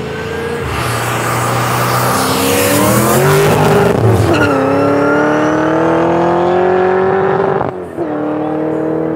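V8 race cars accelerating at full throttle in a drag race. The engine pitch climbs, drops sharply at an upshift about four seconds in, then climbs again. The sound breaks off for a moment near the end and comes back with the engine still pulling.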